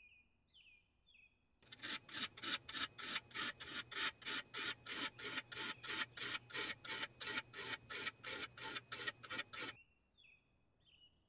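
Tapered diamond-dust sharpening rod rasping back and forth in the serrations of a serrated bread knife, in quick, even strokes of about four a second. The strokes start about a second and a half in and stop near the end.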